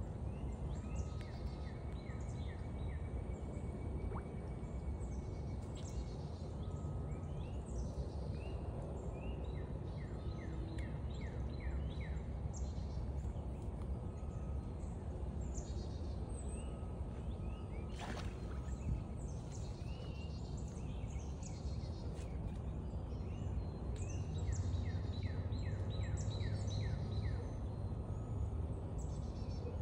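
Wetland ambience: birds chirping in quick repeated series of short falling notes over a steady low rumble, with one sharp click about 18 seconds in.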